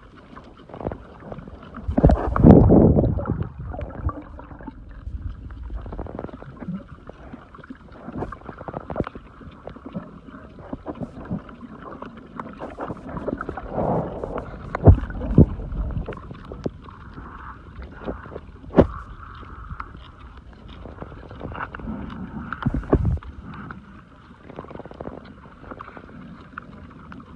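Sea water sloshing and splashing around the microphone, with irregular muffled knocks and low rumbling surges; the loudest surge comes about two seconds in, with sharp knocks later on.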